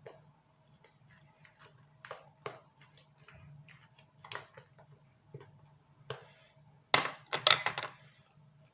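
Light clicks and taps of small objects being handled on a work surface, with a louder burst of clatter about seven seconds in. A faint steady hum runs underneath.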